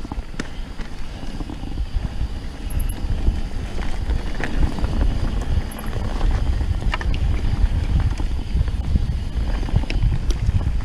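Mountain bike riding over a dirt singletrack: tyres rumbling on the ground, with scattered clicks and rattles from the bike and wind buffeting the microphone.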